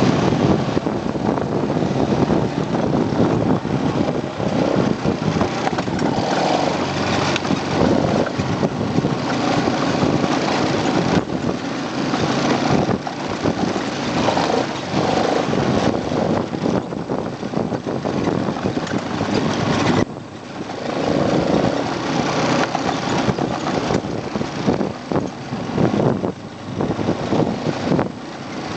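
Quad bike (ATV) engine running as it is ridden over a rough dirt trail, its level rising and falling with the throttle and dipping briefly about twenty seconds in.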